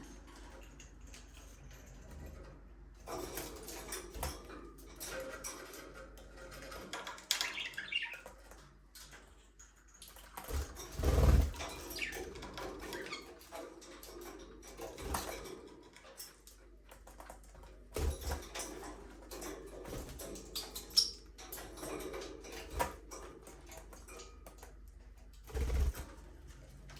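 Budgerigars chirping, with wings flapping and scattered clicks, and a few dull thumps, the loudest a little before the middle.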